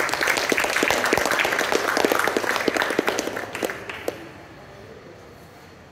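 Audience applauding, with many quick claps that die away about four seconds in.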